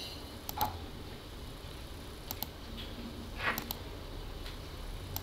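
Computer mouse clicking: about four short, sharp clicks, some as quick double clicks, spaced roughly a second apart, as columns are placed one by one on grid points.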